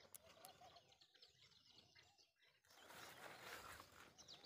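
Very faint outdoor background with birds chirping. From a little past halfway, a soft hiss of liquid being poured from a plastic bottle.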